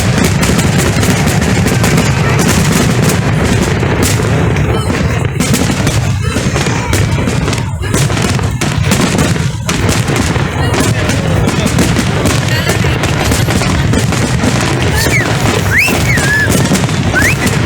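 Fireworks display going off continuously: a dense, rapid run of bangs and crackles with no break, with a few short whistles near the end.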